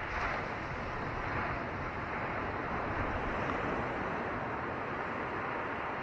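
Ocean surf breaking offshore and washing in over a shore of coral rubble and stones: a steady rushing wash that swells a little right at the start.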